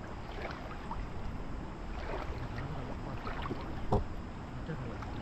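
Water splashing and sloshing in a shallow river, with scattered small knocks and one sharper knock about four seconds in.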